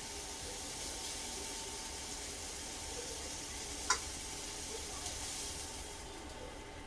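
Chicken strips sizzling in olive oil in a frying pan, a steady hiss, with one sharp click about four seconds in.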